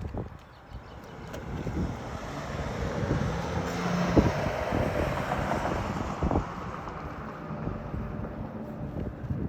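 A vehicle passing by, its noise swelling over a few seconds and then slowly fading, with a few sharp knocks, the loudest near the middle.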